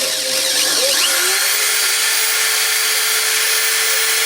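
Corded power drill with a 3 mm bit drilling through a thin metal bowl. The motor whine rises about a second in and then holds a steady pitch as the bit cuts.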